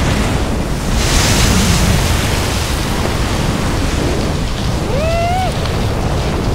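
Steady rushing wind with a low rumble, a brighter hissing whoosh about a second in, and a short rising pitched cry near the end.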